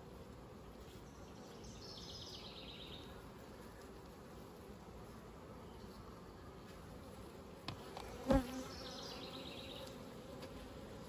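Honey bees buzzing steadily around an open hive and a frame lifted out of it. A short high falling trill sounds twice, and a sharp knock comes about eight seconds in.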